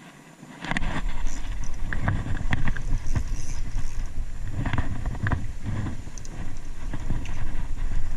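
Wind buffeting the microphone, starting suddenly less than a second in, with irregular knocks and rustles over it.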